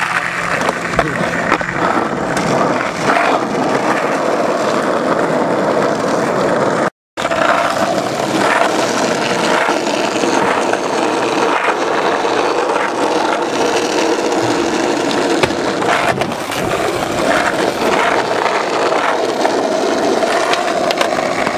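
Skateboard wheels rolling on asphalt with a steady rumble, broken by knocks and clacks of the board. The sound cuts out for a moment about seven seconds in.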